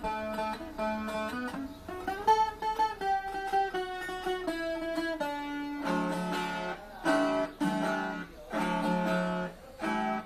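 Instrumental break on plucked acoustic guitar strings: a picked melody line, then rhythmic strummed chords from about six seconds in.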